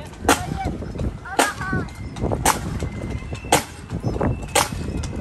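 A marching band's drum struck once about every second, beating time for marchers, with voices talking between the beats.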